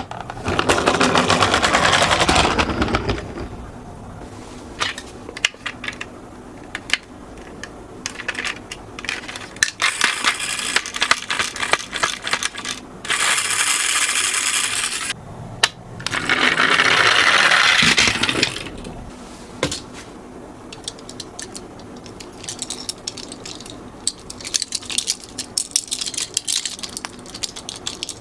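Toy minicars rolling down a slope: a rushing, rattling roll of small wheels that comes three times for about two to three seconds each, with scattered clicks and knocks in between.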